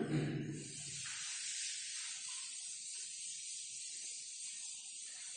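Blackboard duster wiping chalk off the board: faint, uneven soft rubbing under a steady hiss.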